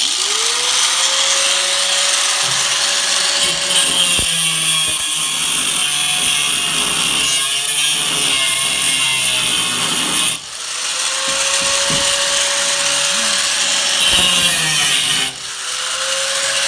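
A grinder running on the steel of a car's rear quarter panel, grinding the metal back down with a loud, steady hiss over the motor's whine. It spins up at the start, stops and winds down about ten seconds in, runs again, and cuts out briefly near the end before starting once more.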